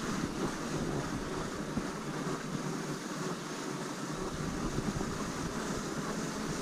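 Steady rushing noise of wind on the microphone and fat tyres rolling over hard-packed snow as an e-bike rides along at speed.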